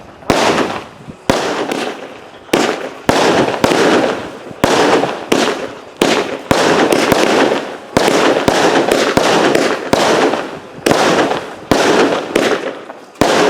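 Consumer fireworks going off in quick succession: loud bangs a little more than one a second, each followed by a crackling tail that fades before the next.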